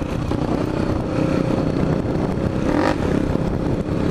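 Motorcycle engines running at a steady road speed, with wind noise on the microphone. A short rising sound comes about three seconds in.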